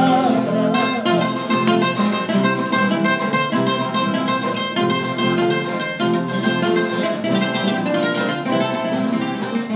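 Viola caipira and acoustic guitar playing an instrumental break in a caipira song, with quick plucked notes over chords.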